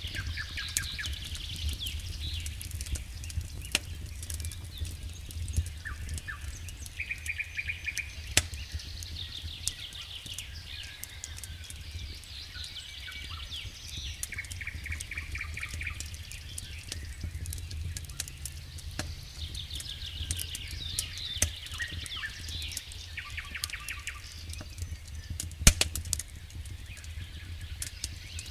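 Wood campfire crackling with many sharp pops and snaps, one much louder pop near the end, over a low steady rumble. Birds give repeated short trilling calls in the background.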